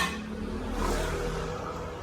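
A motor vehicle engine running steadily with a low hum, after a sharp click at the very start.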